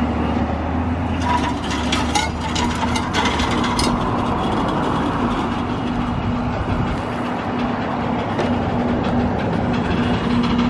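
Flatbed tow truck running steadily as the wrecked car is winched onto its bed, with a cluster of clicks and rattles in the first few seconds.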